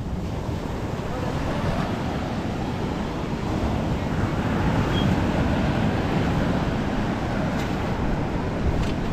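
Wind rumbling on the microphone over the steady wash of surf.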